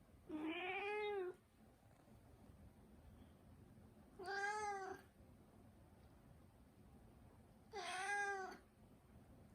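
A Turkish Angora cat meowing three times, a few seconds apart; each meow lasts about a second, with a pitch that rises a little and falls again.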